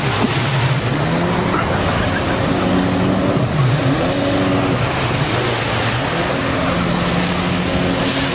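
Jet ski engines running, their pitch rising and falling with the throttle, over a steady wash of splashing water and surf.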